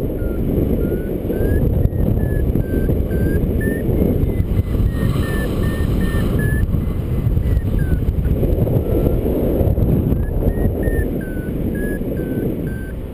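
Wind rushing over the microphone of a paraglider in flight, with a variometer beeping in short tones whose pitch steps up and down, the vario signalling climb in lift. The beeping falls away about eight seconds in and starts again a couple of seconds later.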